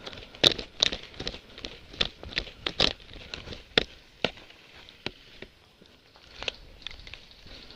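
Footsteps crunching through dry leaves and brush, an irregular run of sharp crackles and snaps, thickest in the first four seconds and thinning out after.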